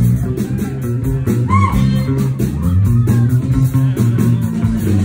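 Live blues band playing: an electric bass guitar carries a bass line under a steady, evenly repeated beat.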